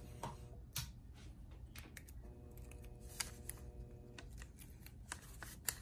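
Faint scattered clicks and taps of fingers handling heat tape and a small glass pendant on sublimation paper, over a low steady hum.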